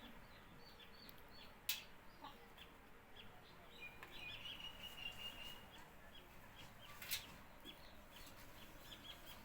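Faint chickens clucking and chirping, with one longer, steady high-pitched call about two and a half seconds in lasting some three seconds. Two sharp clicks cut in, one near the start and one about seven seconds in.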